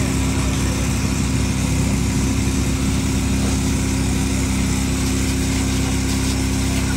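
An engine running steadily at a constant speed, with a steady hiss over it.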